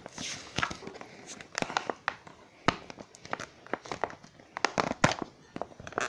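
A sticky label being peeled off a cardboard toy box, with irregular crackling and small tearing sounds throughout.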